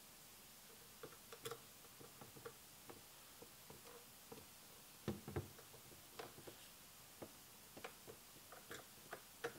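Faint, irregular small clicks and taps of metal screws and a screwdriver against an aluminium cage being screwed together, with a louder double knock about five seconds in.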